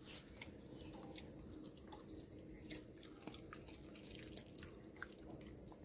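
A Rottweiler–Labrador cross puppy chewing soft sapodilla fruit: faint, irregular wet mouth clicks and smacks.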